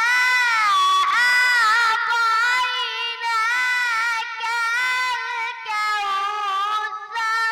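A child's high voice reciting the Quran in melodic tajweed chant, holding long, ornamented notes, with a lingering echo on the voice.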